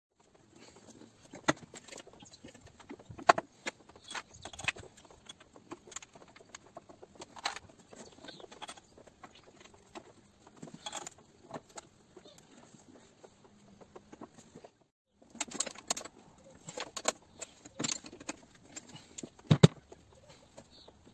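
Irregular metallic clinks and knocks of hand tools and metal parts being handled, with a few sharper knocks, the loudest near the end.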